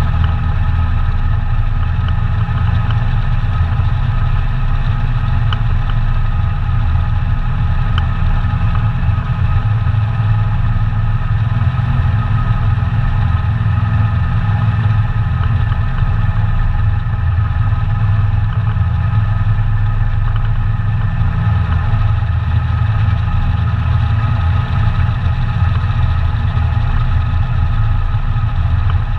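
ATV engine running at a steady speed, with an even, unchanging note throughout.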